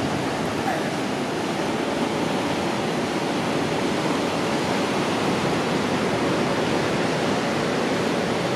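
Ocean surf breaking on the beach below, a steady even roar.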